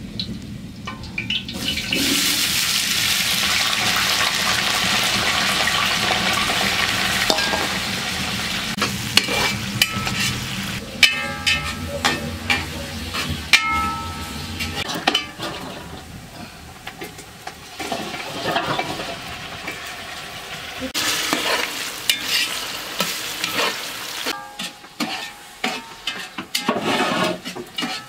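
Chopped onions tipped into hot oil in a metal cooking pot, sizzling loudly for several seconds, then frying more quietly while a metal spoon stirs and scrapes the pot with sharp clicks. The sizzle flares up again about three quarters of the way through, followed by more clinks and scraping.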